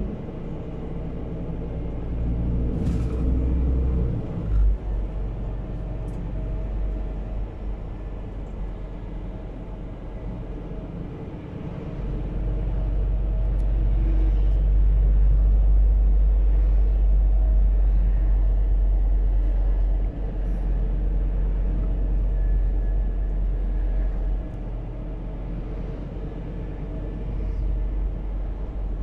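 Cab interior sound of a Scania P280 truck on the move, powered by a biogas bus engine: a steady low engine and road rumble that swells louder for several seconds in the middle, then eases back.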